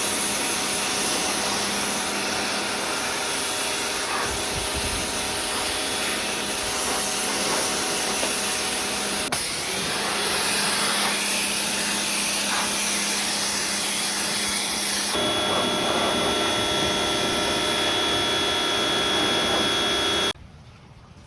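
Electric pressure washer running and spraying water: a steady motor hum with the hiss of the jet. The sound shifts abruptly twice and cuts off suddenly near the end.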